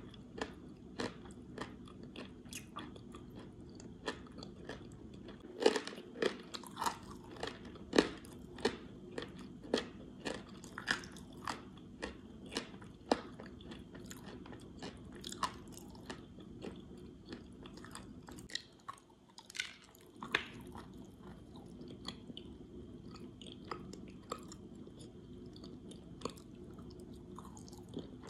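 Clay being chewed: sharp, crackly crunches one or two a second, loudest and densest about six to eight seconds in, with a short lull a little past halfway.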